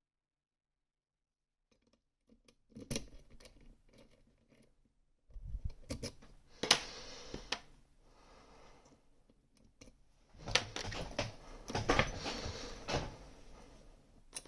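Small metal clicks and scraping in three bursts from handling a Gerda exxo lock, with one sharp click in the middle burst as the loudest sound.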